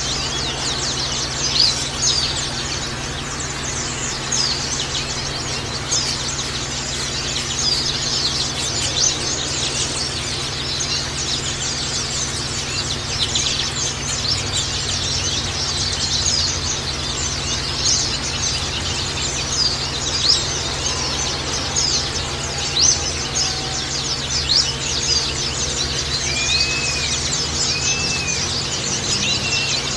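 A flock of white-eyes (Zosterops) chattering continuously in rapid, high, overlapping chirps over a steady background hiss. A few lower arching whistles come in near the end.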